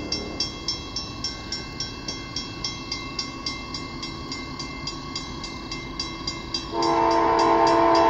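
Grade-crossing warning bell ringing steadily at about three dings a second. About seven seconds in, a CSX locomotive's horn comes in loud and held, several notes sounding together as a chord, over the bell.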